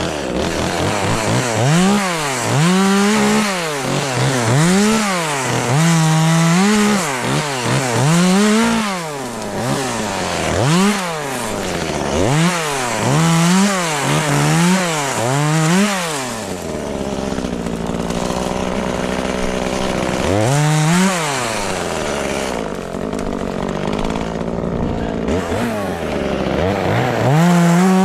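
Two-stroke chainsaw revving up and dropping back again and again, about once a second, easing to a lower, steadier speed for a few seconds past the middle before revving again near the end.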